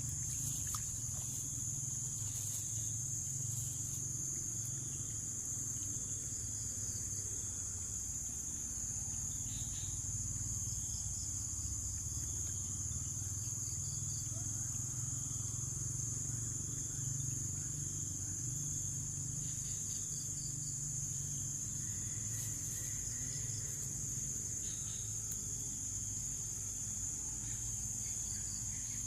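A steady, high-pitched insect chorus, one unbroken shrill drone, over a low steady rumble.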